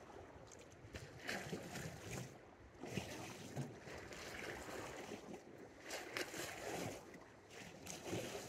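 Small sea waves washing and lapping against the shore in irregular surges every second or two, with some wind on the microphone.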